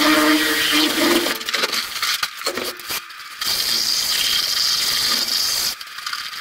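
Cordless drill with a paddle mixer churning wet cement mix in a plastic bucket: a steady motor whine over the gritty scrape and slosh of the mix. It runs in bursts, easing off briefly a couple of times.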